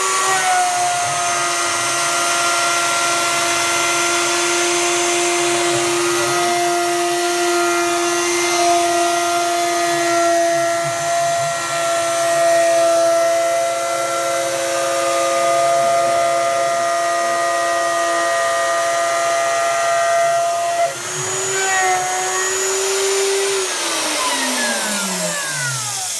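Craftsman router of about 2 horsepower, with a 1/4-inch spiral bit, running on a CNC machine and cutting birch plywood: a steady motor whine mixed with cutting noise. About 21 s in the pitch steps up slightly and the sound gets quieter. Near the end the router is switched off and winds down, its pitch falling.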